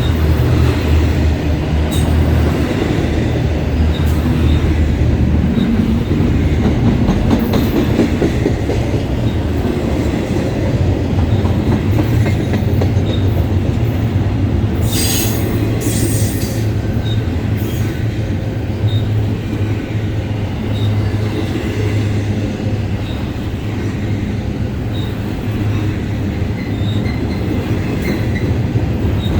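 BNSF double-stack freight train rolling past: a steady, heavy rumble of cars on the rails, with faint regular clicks about once a second and a brief high screech about halfway through.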